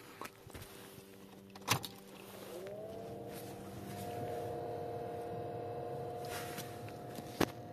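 Newly fitted blower fan motor behind the glovebox of a 2015 Honda Civic spinning up about two and a half seconds in. Its whine rises and then holds steady over the rush of air. Two sharp clicks, one before it starts and one near the end.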